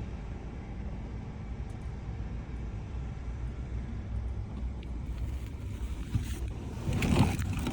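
Steady low rumbling noise, with a louder knock-like noise about seven seconds in.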